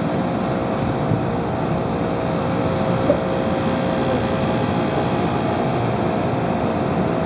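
AC-130 gunship's four turboprop engines droning steadily high overhead, with no gunfire.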